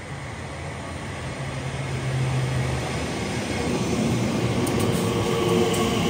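Class 345 electric multiple unit running into the platform, its wheel-on-rail and motor noise growing steadily louder as it draws level.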